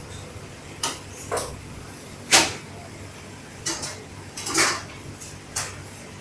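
A scattered series of sharp knocks and clinks, about seven in all, the loudest about two and a half seconds in, with a steady low background hum.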